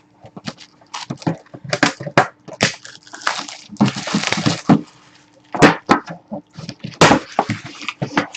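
Hockey card packs being opened and handled: wrapper crinkling and tearing with a longer rustle in the middle, and cards and packaging clicking and tapping.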